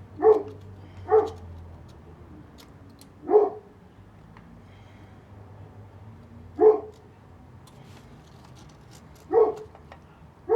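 A dog barking, single barks at uneven intervals, about six of them, with a couple in quick succession at the start.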